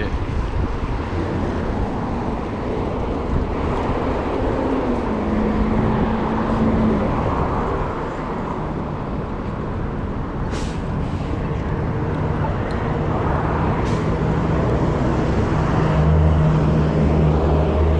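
City street traffic: motor vehicles running close by over steady road noise. A deep engine hum sets in near the end.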